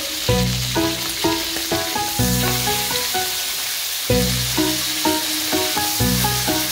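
Sirloin steaks sizzling in butter in a frying pan, a steady hiss, with background music playing over it.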